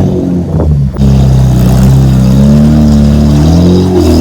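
Car engine revved and held at high revs for about three seconds through its exhaust, then dropping back near the end.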